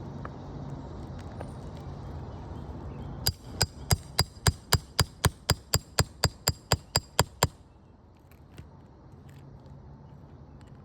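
Roofing hammer rapidly striking a metal nail-removal tool to pull a shingle nail: about eighteen sharp, ringing metallic hits, roughly four a second, starting a few seconds in and stopping abruptly.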